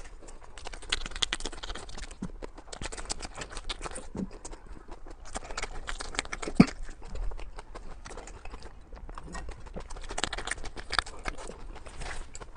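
Close-miked eating: fast chewing and wet mouth clicks and smacks, irregular and dense, with one sharp louder click about six and a half seconds in.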